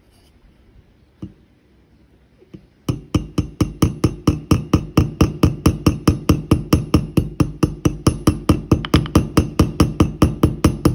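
Light, rapid taps of a 225-gram ball-peen hammer on a straight razor's pivot pin resting on a steel anvil made from an old mason's chisel: a single tap about a second in, then an even run of about five taps a second from about three seconds in. The pin is being peened to tighten a loose blade.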